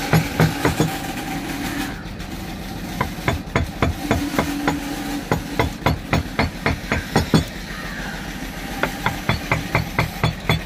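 Wooden mallet striking a carving gouge into teak in quick, even taps, about three to four a second, with two short pauses. A steady hum comes and goes behind the taps.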